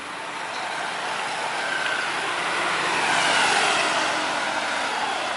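Boeing 747-400 jumbo jet on final approach with gear down, its four jet engines growing louder to a peak about three seconds in and then easing, with an engine whine that falls in pitch as the aircraft passes.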